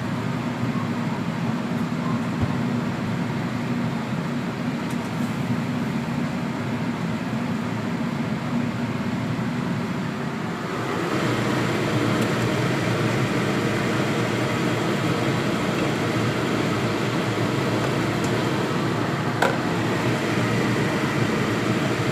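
Steady stovetop cooking noise from chicken simmering in soy sauce and sugar in a pan. It grows louder and brighter about eleven seconds in, with a couple of light clicks near the end.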